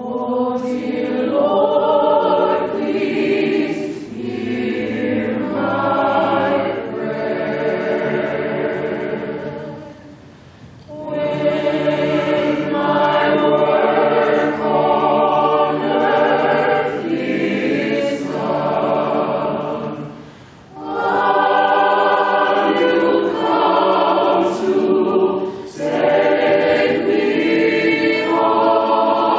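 Mixed-voice choir singing in long, held phrases, with short breaks between phrases about a third and two thirds of the way through.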